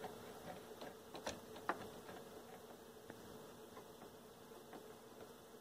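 Faint steady electrical buzz over low hiss, with two soft clicks about a second and a half in.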